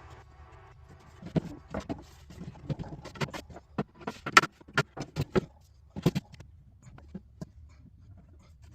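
A string of irregular light knocks and clicks, busiest from about a second in until just past the middle, then thinning out, over a faint low hum.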